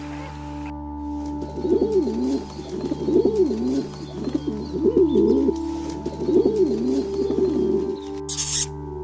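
White dove cooing: four warbling coo phrases, each rising and falling in pitch, over a steady background music bed.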